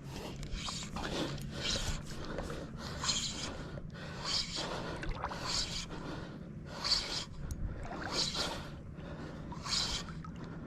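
Repeated heavy breaths, about one every second and a quarter, over a faint steady low hum.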